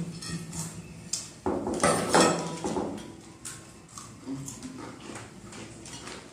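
Stainless steel plates clinking and scraping while Kurkure corn puffs are eaten by the handful, with crunching and rattling of the snacks; the loudest stretch comes from about one and a half to three seconds in.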